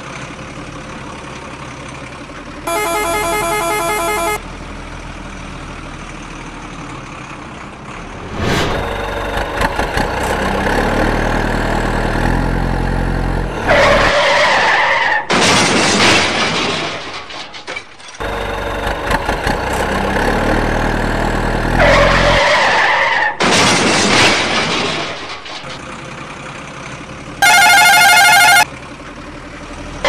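Truck engine running and revving, with a long horn blast about three seconds in and another near the end. There are tyre skids through the middle.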